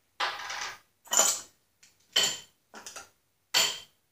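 Metal scraping and clinking as a bushing puller is taken apart: a nut run back along a well-used threaded rod and steel washers and a plate slid off it. It comes in about five short separate bursts.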